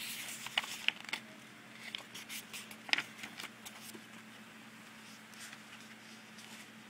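Pages of a children's picture book being handled and turned: about three seconds of paper rustling and light taps, then quiet room tone with a faint steady hum.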